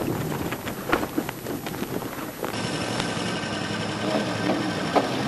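Ram 2500 4x4 pickup driving fast over desert sand: engine and wind noise with sharp knocks. About halfway through the sound changes to a steadier rushing noise.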